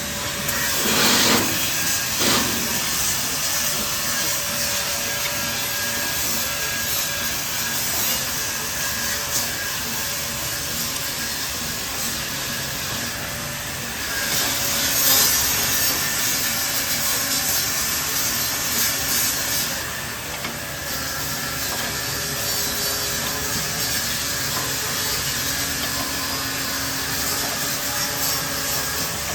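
Steady rasping grinding noise of a grinder running in the workshop, with faint steady tones. It gets louder briefly about a second in, around 15 seconds in and around 20 seconds in.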